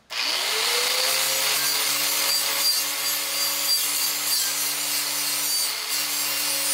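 Angle grinder with a twisted-knot wire wheel spinning up, its whine rising over about the first second, then running steadily as the wire scrubs the metal seat pan clean for welding.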